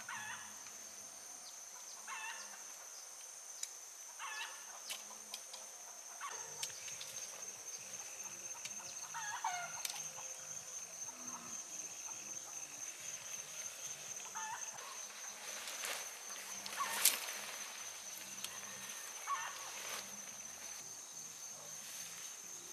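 Outdoor evening ambience: a steady high-pitched insect drone, with short bird calls every couple of seconds. Tent fabric rustles briefly about seventeen seconds in.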